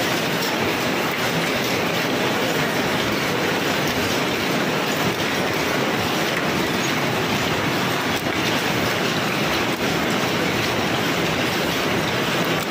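Paper cup making machine running, a steady dense mechanical clatter.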